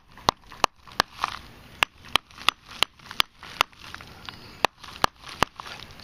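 A hard, dark crusty lump being struck repeatedly and broken apart on newspaper over concrete: a string of sharp knocks, about two a second, with a short pause midway. The lump gave a loud metal-detector signal, and this is it being broken open to find the metal inside.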